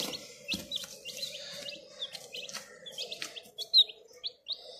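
Giriraja chicks peeping: many short, high, downward-sliding peeps, several a second, one louder peep near the end.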